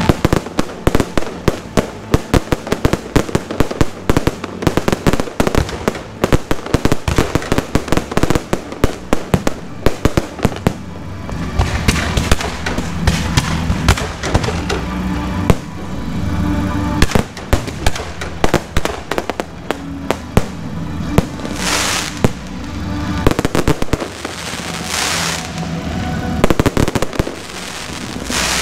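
Aerial fireworks going off in rapid strings of sharp bangs, densest in the first ten seconds and sparser after, with a few short hissing bursts in the last several seconds. Music plays underneath.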